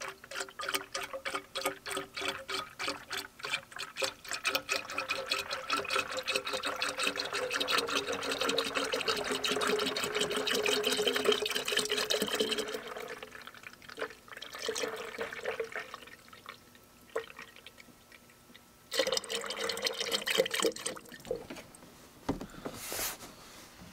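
Dex-Cool antifreeze glugging out of a plastic jug into a truck's coolant reservoir, a rapid run of gulps as air bubbles back into the jug. The pour thins out about halfway through, comes back briefly, then stops.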